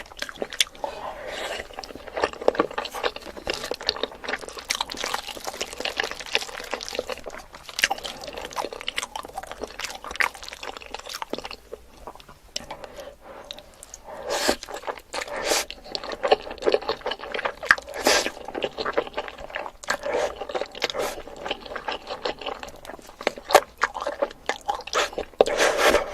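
Eating sounds: Korean sweets being crunched and chewed close to the microphone, a dense run of crackling clicks, busiest in the second half.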